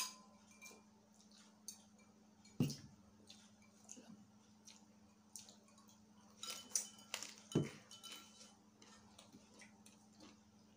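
Glasses clinking together in a toast right at the start, with a brief ring, then scattered small clicks and knocks of eating at a table: glasses, plates and food being handled, with two louder knocks a few seconds apart.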